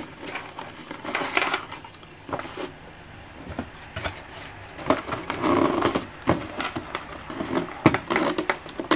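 Hands handling a cardboard box and the USB cables plugged into a salvaged hub inside it: scattered clicks and knocks with a few longer scraping rustles.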